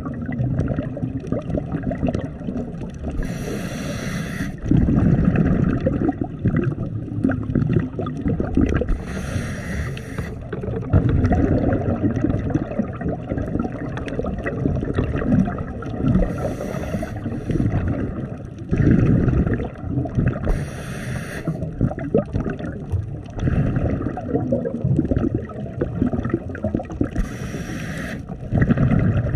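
Underwater breathing of a scuba diver on a regulator: a short hiss of inhalation five times, each followed by a rush of exhaled bubbles gurgling, over a steady low water rumble on the camera housing.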